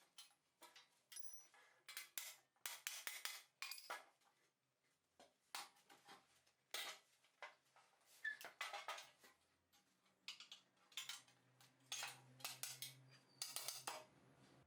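Metal parts being handled in a workshop, with irregular light clinks and clicks, some in quick clusters.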